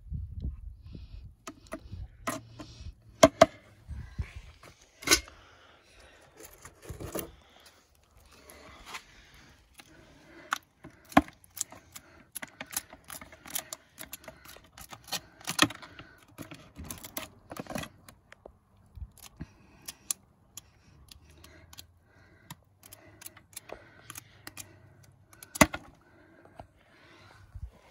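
A small knife scraping and picking at a halved snow crab's body and shell while its gills and innards are cleaned out, making irregular sharp clicks and short scrapes.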